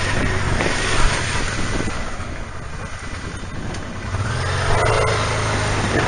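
Honda Deauville V-twin motorcycle engine running at low speed under a steady hiss of wind and road noise. The engine eases off and quietens around the middle, then picks up again with a steady low hum about four and a half seconds in.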